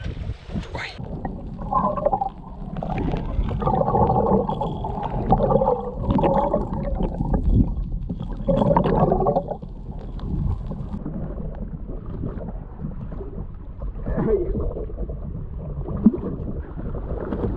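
Muffled underwater sound as heard by a camera in a waterproof housing: water gurgling and rushing, with several louder rough bursts in the first half.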